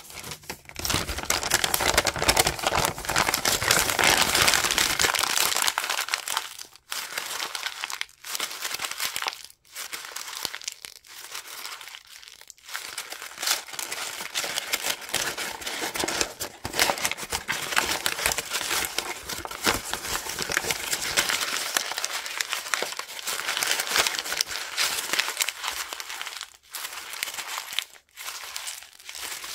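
Brown kraft paper-bag paper being crumpled and scrunched by hand: continuous crinkling and crackling, broken by a few brief pauses.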